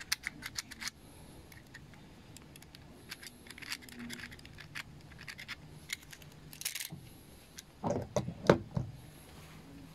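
A utility-knife blade scraping and clicking against a metal carburetor body, in a string of short scrapes, as the leftover gasket is scraped off the mating face. About eight seconds in come a few louder knocks.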